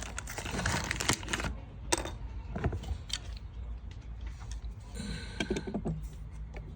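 Clicks, taps and rattles of small hard parts being handled while fitting a replacement vacuum breaker valve, busy for the first second and a half and then scattered single clicks, over a steady low hum.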